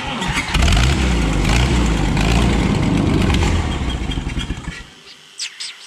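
Power Horse farm tractor engine being started: it turns over, fires and runs unevenly for about four seconds, then fades out and dies. The stalling comes from a fuel-delivery fault, later traced to a fuel pump that was hooked up backwards.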